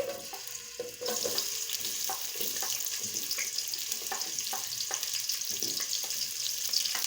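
Chopped onions sizzling in hot vegetable oil in a cooking pot. The sizzle gets louder about a second in, with scattered light clicks through it.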